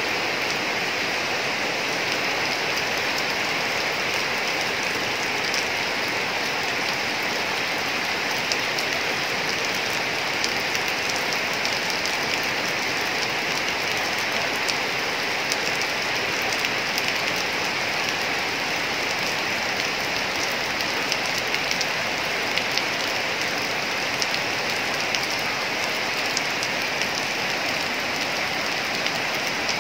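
Heavy rain falling steadily on corrugated metal roofing, a dense even hiss with many sharp drop ticks scattered through it.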